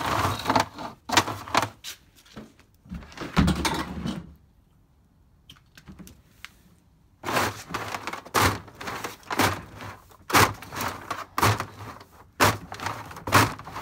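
Irregular knocks and clunks of things being handled and moved about, with a quiet pause of about three seconds in the middle.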